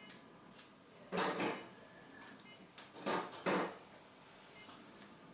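Three short scraping noises: one about a second in, then two close together about three seconds in.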